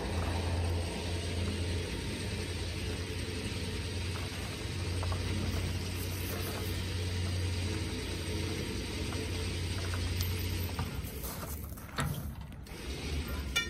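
Winch gears grinding with a steady low hum, reeling in the steel cable that drags a 1940 Ford COE truck. The pull stops briefly a little before the end, and a sharp clank follows.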